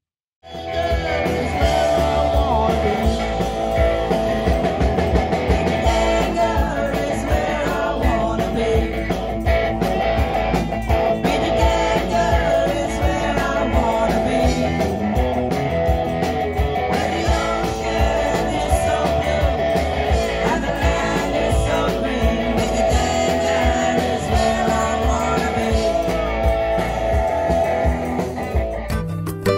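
Live band playing a rock song: several voices singing over electric guitar, bass guitar and drums. It starts about half a second in, after a moment of silence.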